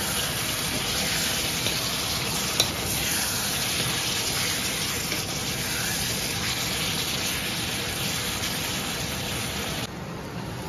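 Chunks of meat sizzling and frying in oil in a pan as they are stirred with a wooden spatula, with one sharp knock of the spatula a couple of seconds in; the meat's own water has cooked off, so it is frying in the oil. The sizzle drops suddenly near the end.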